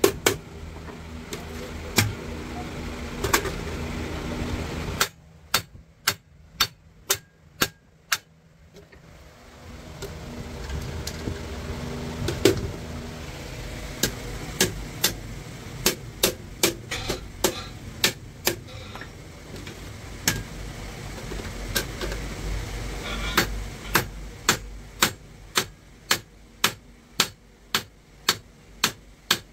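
Hand hammer striking metal over and over, in quick runs of about two blows a second. A steady low hum sits behind it, cutting out about five seconds in and coming back about five seconds later.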